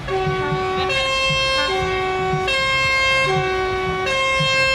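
Truck's two-tone horn sounding a hi-lo pattern, switching between a low note and a higher note about every second, three times each.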